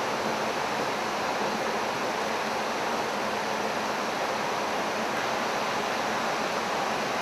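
Steady rushing noise inside an AWACS early-warning jet's cockpit: the air and engine noise of the aircraft, unchanging, with a faint low hum beneath.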